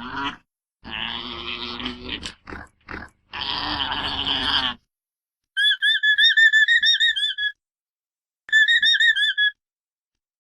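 Alpaca calls. In the first half there are several rough, buzzy calls, the longest about a second and a half. After a pause come two high, warbling, whistle-like calls: the first lasts about two seconds, the second about one.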